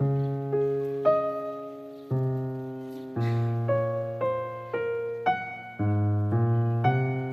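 Background piano music: a slow melody of single struck notes, each fading away, over low bass notes that change every second or two.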